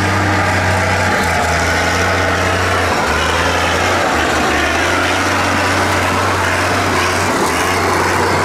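Farm tractor diesel engine working hard as it drives through deep mud: a steady low drone that dips briefly a few times, over a dense noisy hiss.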